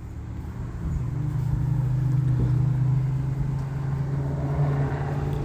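A steady low mechanical hum that grows louder about a second in.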